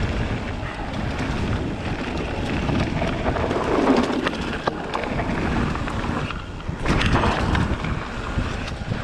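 Wind buffeting an action camera's microphone over a mountain bike rolling on dry, dusty dirt, with scattered clicks and knocks from the bike.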